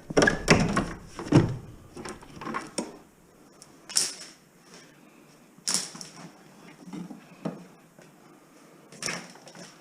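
Knocks and clatters of scrap metal being handled: a quick run of them in the first three seconds, then single sharp knocks every second or two.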